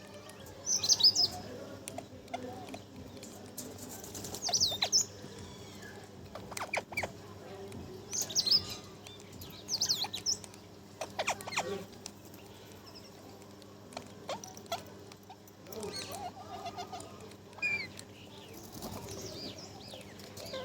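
Pet parrot giving short, high chirping calls, repeated every second or two, over a faint steady low hum.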